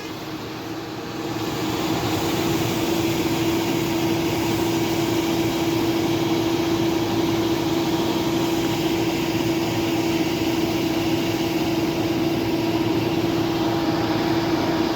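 A heavy engine running steadily at a constant speed, with an unchanging hum over the noise, getting louder a little over a second in.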